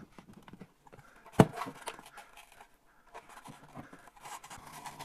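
Handling noise of a plastic recessed Halo LED light and its junction box being pushed up into a hole in the drywall ceiling: scraping and rustling, with one sharp knock about a second and a half in and a few lighter clicks later.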